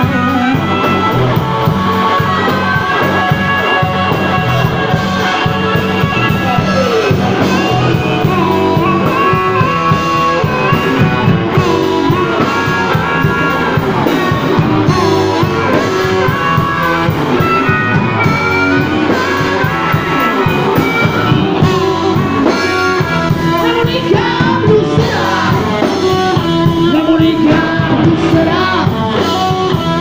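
Live blues band playing: a harmonica played into a hand-cupped microphone, wailing and bending notes, over electric guitar and drums.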